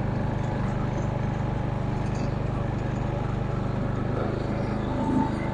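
Small engine of a Simplicity rear-engine riding mower running steadily with the cutting blades disengaged.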